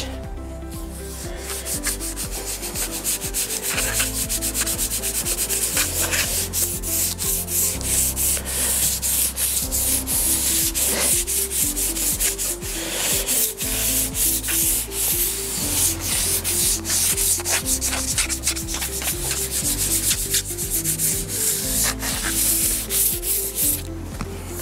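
Plastic fondant smoothers rubbing back and forth over the fondant on a cake: a continuous run of quick rubbing strokes as the top edge is smoothed and pulled up sharp.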